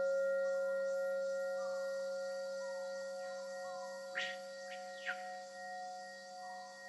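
Singing bowl struck and left ringing: a clear, steady tone with a higher overtone that starts suddenly and slowly fades, over another bowl still ringing. Faint gliding chirps run through it, with two sharper sweeps about four and five seconds in.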